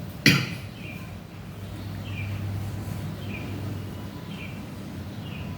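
A bird chirping in short, falling notes about once a second over a steady low hum. A sharp knock just after the start is the loudest sound.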